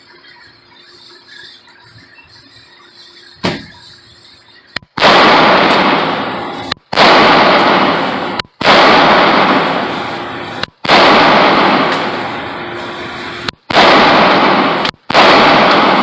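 Walther PPQ pistol fired six times in slow succession inside an indoor range, each shot very loud and trailing off in a long echo, starting about five seconds in, roughly one shot every one and a half to two and a half seconds.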